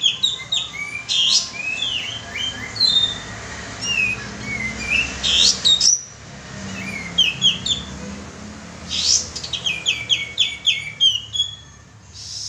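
Song of the kapas tembak bulbul played as a lure call: lively sharp chirps and short sweeping whistled notes, with a quick run of repeated notes near the end.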